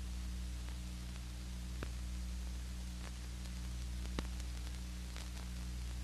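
Background noise of an old film soundtrack between narration: a steady low hum under an even hiss, with a few faint clicks.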